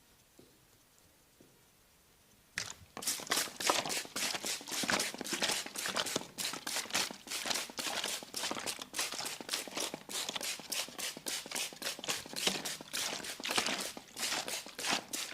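Close-miked head massage: hands working over the scalp and hair, giving a dense, rapid crackling of several strokes a second. It starts suddenly about two and a half seconds in.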